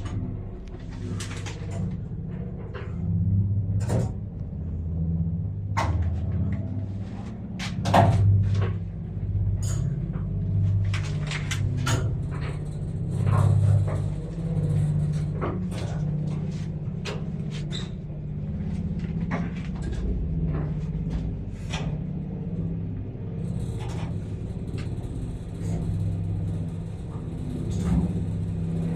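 Old relay-controlled passenger lift in motion: the drive and the moving cab give a steady low hum and rumble, with irregular clicks and knocks from the cab and shaft throughout.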